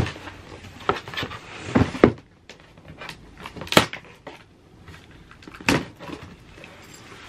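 A cardboard shipping box being cut open with a key and handled: a handful of sharp knocks and scrapes of cardboard, with quieter rustling of the flaps and tape between them.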